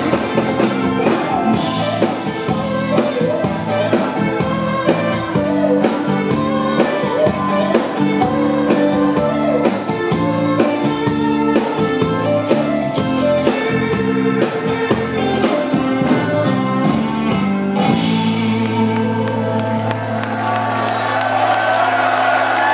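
Live blues-rock band playing guitar and drums over a steady beat. About eighteen seconds in the drums stop and a final held chord rings out, ending the song.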